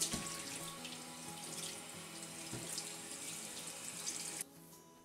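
Kitchen tap running into a stainless steel sink, the water splashing over a joint of beef as it is rinsed and turned by hand. The water stops abruptly about four and a half seconds in.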